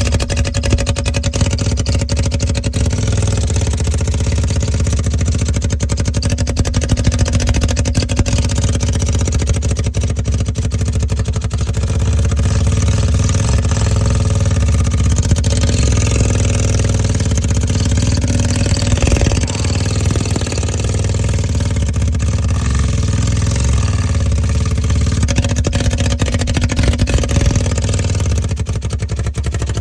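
An engine running steadily and loudly throughout, with a deep rumble and a constant clattering noise over it.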